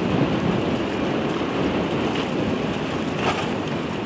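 Strong wind buffeting the microphone in a steady low rumble, with the wash of a rough sea underneath.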